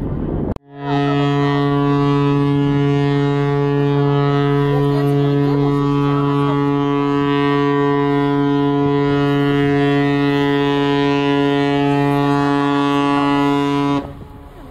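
A ship's horn sounding one long, steady, loud blast of about 13 seconds. It starts abruptly and cuts off sharply near the end.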